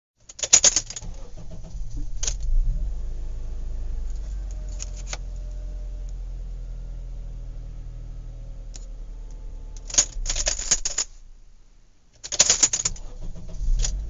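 Several short bursts of rattling, clinking clatter, the loudest near the start and around 10 and 12 seconds in, over a steady low rumble that fades briefly just before the last bursts.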